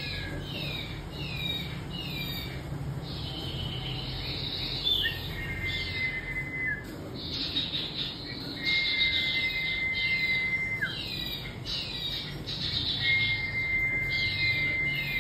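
Caged huýt cô songbird singing: runs of quick downslurred whistled notes, broken three times by a long, level whistle lasting about two seconds.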